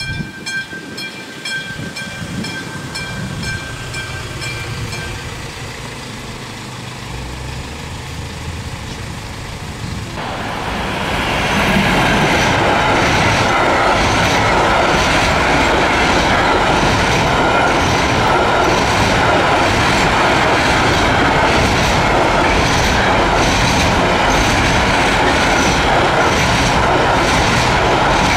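Level-crossing warning bell ringing in quick, even strokes as the barrier lowers, dying away about five seconds in. From about ten seconds in, a container freight train passes close by, its wagons' wheels clattering steadily over the rail joints.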